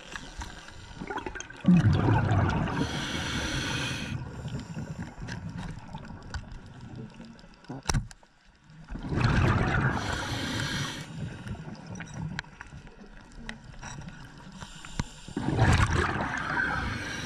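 Scuba diver breathing through a regulator underwater, heard as three loud bursts of exhaled bubbles, each about two seconds long and several seconds apart, over a low watery background. A single sharp click comes between the second and third bursts.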